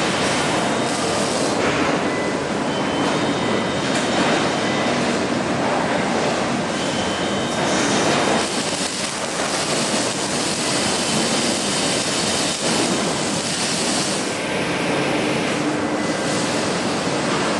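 Steady loud din of a car-body welding shop: machinery and ventilation noise, with brighter hissing bursts now and then from the welding.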